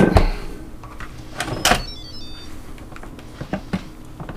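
Knocks and clunks of an electric pressure cooker's lid being gripped and twisted to unlock it, the loudest right at the start and another about one and a half seconds later. A short electronic beeping tune of stepped high notes sounds about halfway through.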